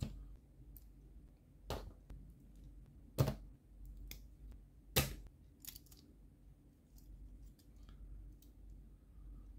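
Plastic model kit parts clicking together as a Gundam model's leg is pressed onto its hip joint. Four sharp clicks come about a second and a half apart, with lighter plastic taps between them and after.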